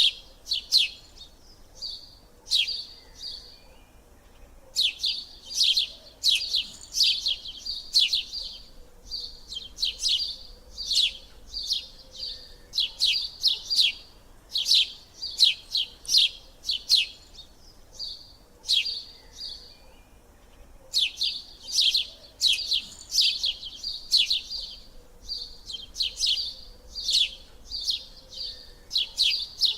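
A bird chirping in runs of rapid, sharp, high chirps, several a second, with a pause of about two seconds a few seconds in and another about two-thirds of the way through.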